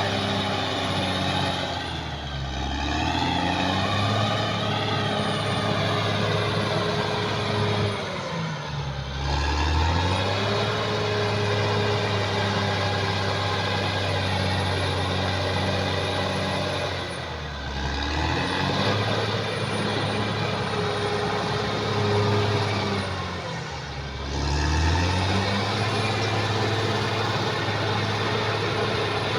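Caterpillar D6R XL bulldozer's diesel engine running hard and steady. Its note sags and recovers four times, about every seven seconds, with a faint high whine that drops along with it.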